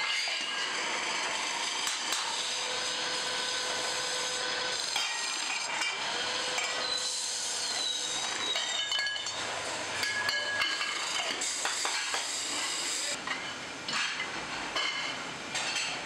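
A metal lathe turning a ceiling-fan cover, the cutting tool scraping the spinning metal with a steady hiss. There is a brief high squeal about halfway through and scattered metallic clinks.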